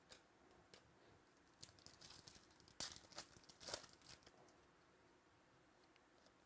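Faint rustling and crinkling of trading cards and their plastic or foil packaging being handled, in a cluster of short bursts with a few sharp clicks between about a second and a half and four seconds in.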